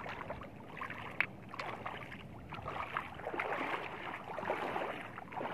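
Shallow seawater splashing and sloshing, louder in the second half, with one sharp click about a second in.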